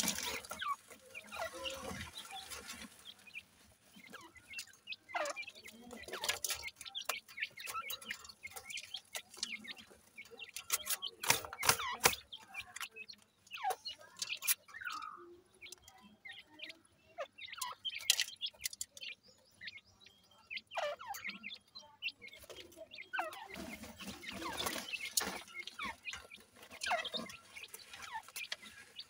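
Francolin (teetar) chicks calling with short, high, falling chirps scattered irregularly, along with small clicks and ticks as they peck in gravel.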